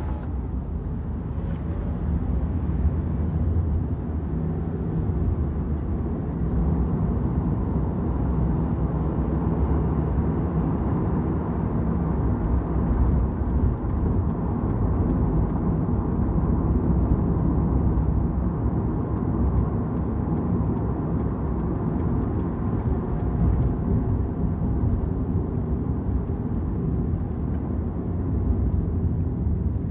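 Car driving through city traffic: a steady low rumble of engine and tyre road noise that holds even throughout.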